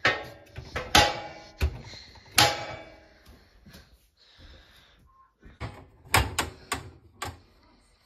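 Dishwasher's wire lower basket and the crockery in it clattering and clinking as dishes are handled and the rack is moved. Several loud rattling knocks come in the first few seconds, then a quick run of four sharp knocks near the end.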